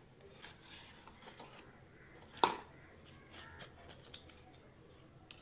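Cardboard packaging being handled and opened by hand: light rustling and scraping, with one sharp click about halfway through.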